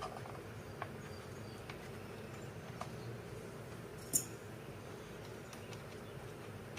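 Steady faint low hum with a few small clicks and taps, the sharpest one about four seconds in.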